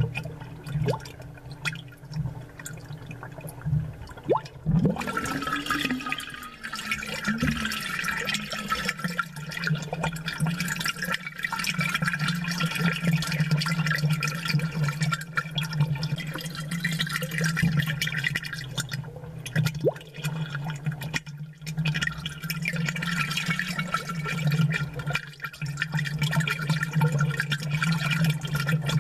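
Amplified aquarium sound: water bubbling and gurgling with scattered small pops, over a steady low hum.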